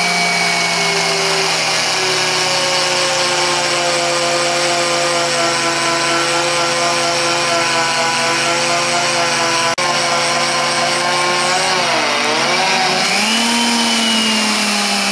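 VEVOR 8850E magnetic drill press motor running under load as a 5/16-inch twist drill bores through steel plate, a steady whine whose pitch sags slowly. About twelve seconds in the pitch dips and then rises higher as the bit breaks through.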